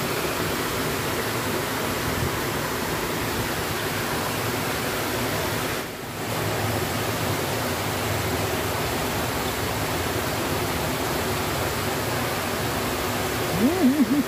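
Steady rush of water from a small waterfall spilling over a weir into a fast-flowing river. Near the end a brief wavering pitched sound rises over it.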